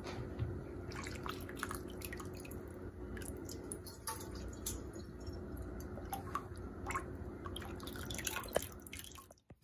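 Broth dripping and splashing off a metal spoon and ladle as cooked bones and vegetables are scooped out of a stockpot, with scattered small clicks and drips over a steady low hum.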